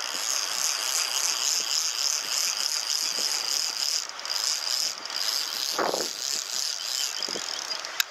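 Vintage Omori Diamond Reel Tackle Auto No.1 spinning reel being cranked to retrieve the lure: a fast, steady gear rattle with two brief pauses around the middle, ending in a sharp click.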